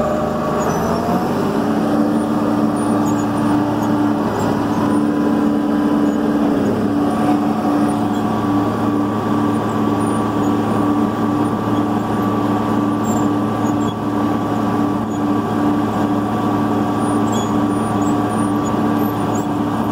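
Farm tractor pulling a grain cart, its engine running steadily as heard from inside the cab: a constant drone with a steady held tone that settles in about a second and a half in.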